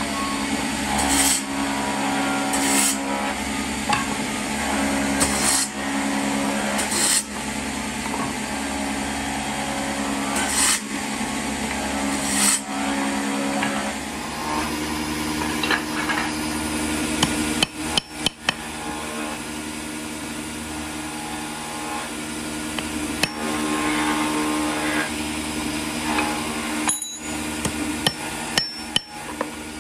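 Workshop machine motor running with a steady hum, with sharp knocks of wood and tools every second or two; about halfway the hum changes pitch, and a few more sharp knocks come near the end.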